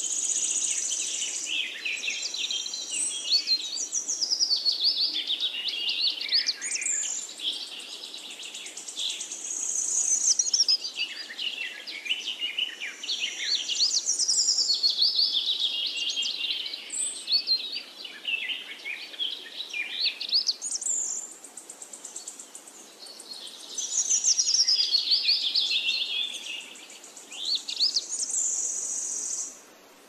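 Birdsong: many high chirps and quick trills in phrases a few seconds long with brief pauses between them, over a faint steady hiss.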